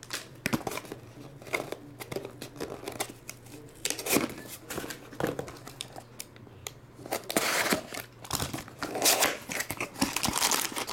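Rustling and crinkling of foil trading-card packs and cardboard as they are handled, then, in the second half, a utility knife slitting the seal of a small cardboard box and the box being pulled open, with a denser run of scraping and rustling.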